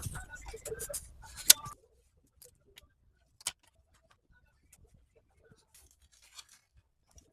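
Crinkling rustle and small clicks of hands handling a new iPhone 8 Plus replacement battery and its plastic film, with a sharp click about one and a half seconds in and another about two seconds later, then only faint scattered ticks.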